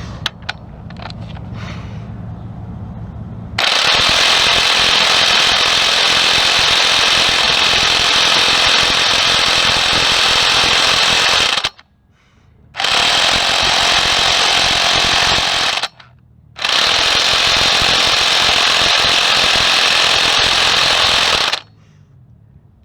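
Impact wrench hammering on engine head bolts in three long runs of about eight, three and five seconds, with short pauses between them. The last bolts are stubborn and don't come loose. A low steady hum comes before the first run.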